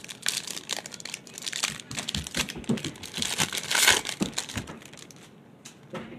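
Foil trading-card pack wrapper crinkling and tearing as it is ripped open and crumpled by gloved hands. It is loudest a little before the four-second mark and dies down about a second before the end.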